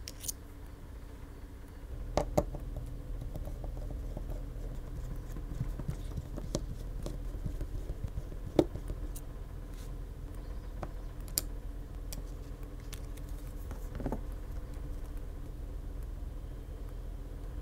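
Small metal clicks and taps of a precision screwdriver and tiny screws as screws are backed out of a smartphone's internal bracket, scattered and irregular, with two louder clicks about two seconds in and another about halfway, over a low steady hum.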